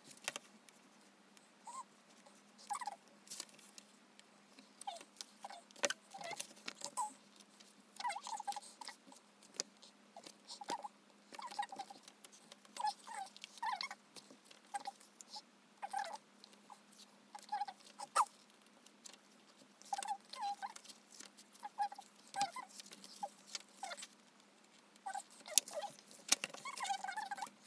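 Glossy photobook pages being turned and handled: a steady string of short paper rustles, slides and light taps, one to a few each second.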